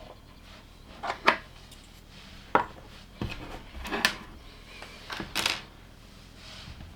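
Plastic LEGO bricks and parts being handled, giving several sharp, irregular clicks and knocks.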